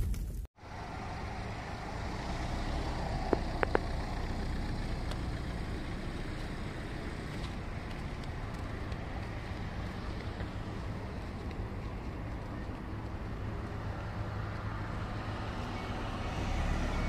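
Steady background rumble of distant road traffic, with two brief clicks about three and a half seconds in and faint repeating beeps starting near the end.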